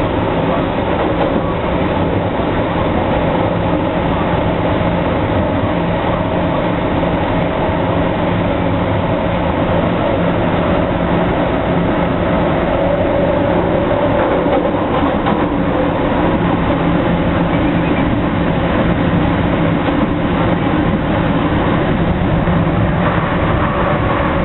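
MTR Kwun Tong Line metro train under way: steady traction-motor whine with several held tones over the rumble of wheels on rail.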